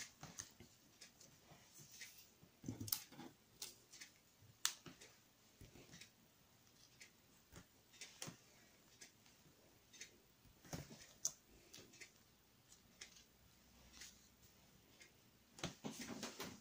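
Faint, scattered taps, clicks and soft rustles of paper and card stock being handled on a work table.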